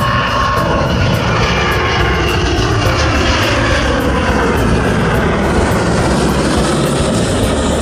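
Twin-engine jet airliner passing low overhead with its landing gear down on approach. Loud jet engine noise and rushing air, with whining tones sliding down in pitch as it goes over.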